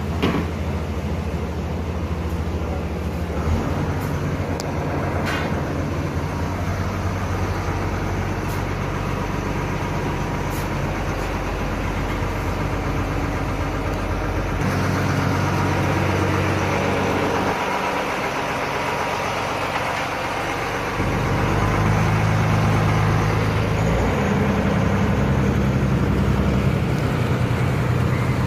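A houseboat's engine running with a steady low hum, its tone shifting a few times and growing louder in the last third, as the boat moves through the water.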